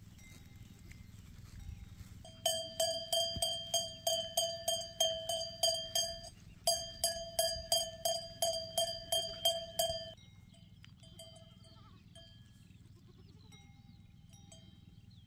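A metal bell rung in rapid, even strokes, about three to four a second, each stroke ringing briefly at the same pitch; it starts about two and a half seconds in, pauses for half a second in the middle, and stops about ten seconds in.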